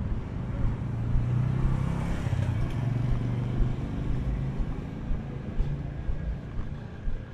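A motor vehicle's engine passing, its low hum strongest for the first few seconds and then fading away.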